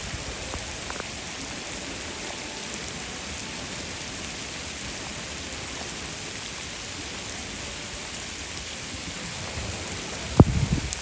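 Steady rain falling, an even hiss, with a sudden low thump and rumble near the end.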